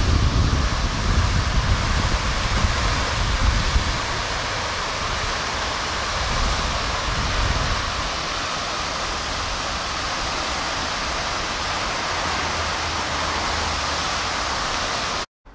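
Steady splashing hiss of a pond fountain's jet falling back into the water, with wind buffeting the microphone in gusts during the first half. The sound cuts off suddenly near the end.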